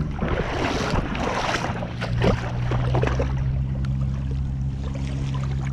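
Feet splashing and sloshing through shallow water while wading, busiest through the first few seconds and then easing, over a steady low hum.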